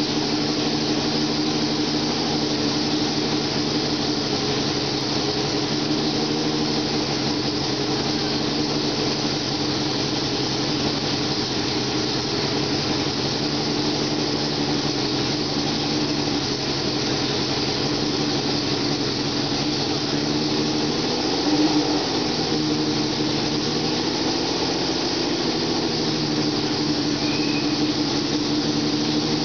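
1993 Ferrari F93A Formula One car's 3.5-litre V12 engine idling steadily, with a brief blip of the throttle about two-thirds of the way through.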